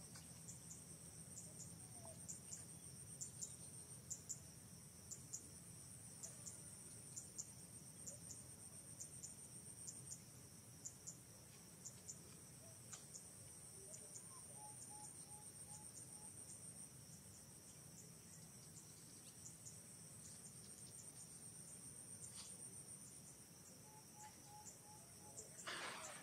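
Faint, steady high-pitched insect chorus with a regular ticking pulse running through it.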